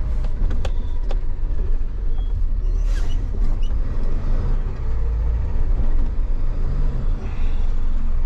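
Flatbed tow truck driving slowly, heard from inside the cab: a steady low engine and road rumble, with a few sharp clicks in the first three seconds.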